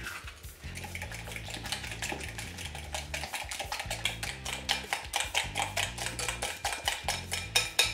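Metal fork beating eggs and mashed banana in a glass bowl: a fast, even run of clinks of the fork against the glass, louder toward the end.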